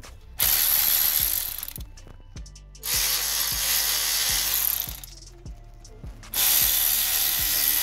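A cordless power tool on a long socket extension spinning out bolts in three runs of about one and a half to two seconds each: the three 13 mm bolts of the gear linkage bracket coming off the gearbox during a clutch job.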